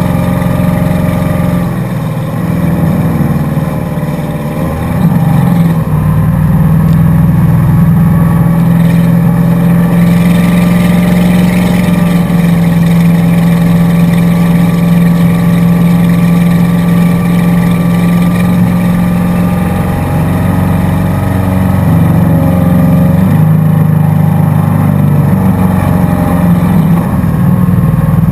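Motorboat engine running at speed while towing, a loud steady drone whose pitch wavers in the first few seconds and again a little past the middle.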